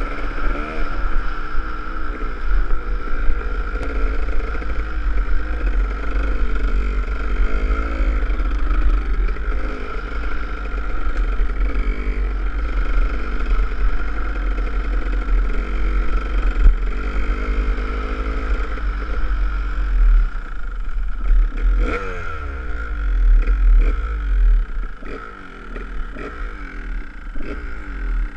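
Kawasaki KDX200's single-cylinder two-stroke engine running under way on a grass trail, its pitch rising and falling as the throttle is worked, with heavy wind rumble on the camera microphone. About three-quarters of the way through the revs fall away sharply and the engine runs quieter after that.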